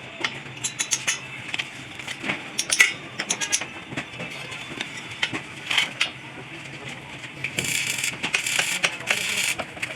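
Metal parts and tools clinking and tapping irregularly, with a stretch of hissing about seven and a half seconds in.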